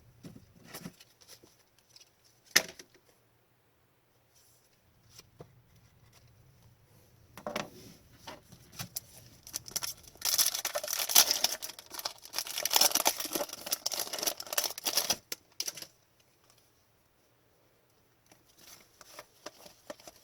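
Trading cards being handled, with one sharp click a couple of seconds in, then a foil card pack wrapper crinkling and tearing open for several seconds near the middle.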